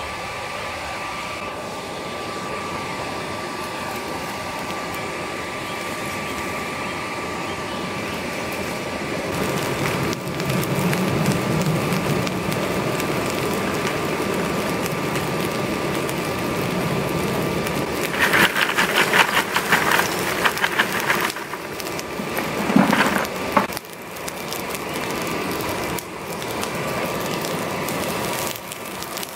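Steady rushing noise of a charcoal forge being lit and fed with air. A few seconds of dense crackling and popping come about two-thirds of the way in.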